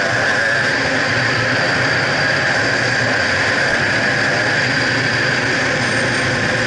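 A 2011 Gas Gas EC300's 300 cc two-stroke single-cylinder engine running hard while the enduro bike is ridden at speed over a dirt track. Its pitch wavers slightly with the throttle under a steady rush of noise.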